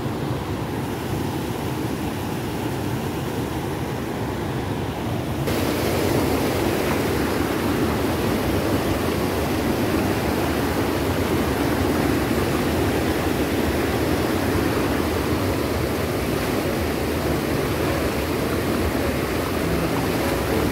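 Water rushing and splashing over a low concrete weir, a steady rushing noise that gets louder and hissier about five seconds in.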